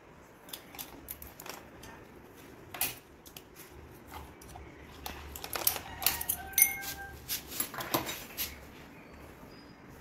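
Metal parts of a Godrej cylindrical door lock clinking and clicking as they are handled and fitted: the steel rose plate, trim and screws knocking together, with a few short metallic rings. The clinks are scattered and come thickest about halfway through.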